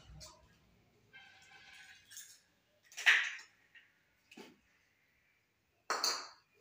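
Eggs being cracked with a kitchen knife and poured out of a small ceramic bowl into a steel pan: about four sharp taps and clinks of the blade on eggshell and of crockery on metal, the loudest about three seconds in.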